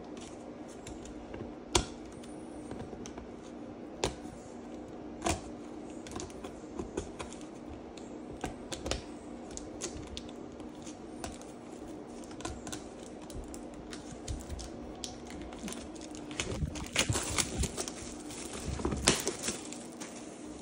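Hands handling a cardboard Pokémon Elite Trainer Box: scattered sharp taps and clicks of fingers on the card, then a denser run of crackly rustling from about three-quarters of the way in, over a steady faint low hum.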